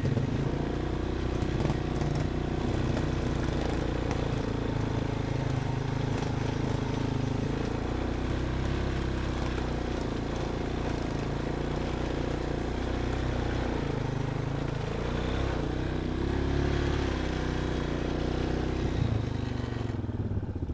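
ATV engine running continuously under load, its revs rising and falling with the throttle, with a noticeable pick-up in revs near the end.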